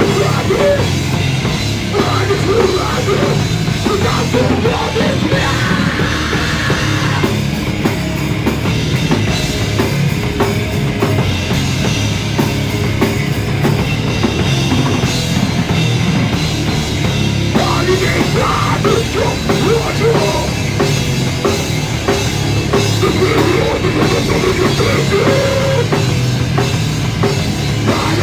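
A punk rock band playing live and loud: distorted guitars, bass and a pounding drum kit, recorded on a mobile phone.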